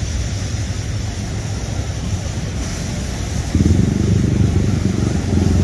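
A vehicle engine running under a low steady rumble; it gets suddenly louder about three and a half seconds in.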